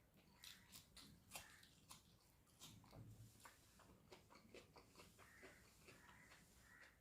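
Faint chewing and mouth sounds of a person eating rice with egg curry, with many short wet clicks a few times a second.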